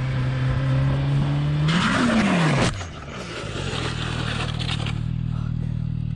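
Motorcycle engine running steadily, then its revs flare up and fall away as the bike low-sides, with a loud scraping of the bike and rider sliding on asphalt about two seconds in. The scraping fades over the next two seconds, and an engine keeps running steadily after it.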